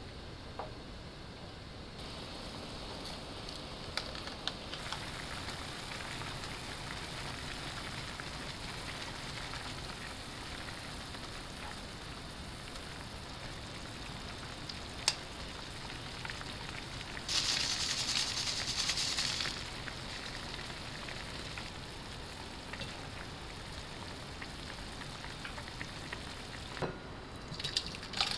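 Ramyeon broth boiling in a frying pan, a steady bubbling hiss with small crackles. About two-thirds of the way through there is a louder hissing stretch of about two seconds. Near the end come a few sharp clinks as the pan is tipped out with tongs.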